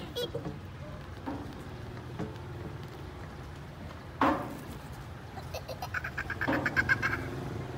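A young child's short, loud squeal about halfway through, then a run of quick giggly vocal sounds near the end, over a low steady background hum.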